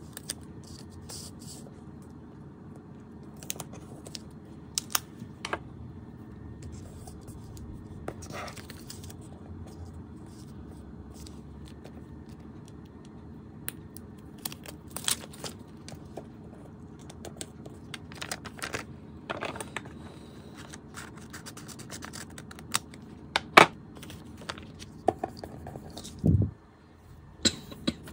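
Paper stickers and paper pieces being handled and pressed onto a paper collage sheet: scattered small scratches, rustles and taps over a steady low hum. Near the end there are a sharp click and then a dull knock.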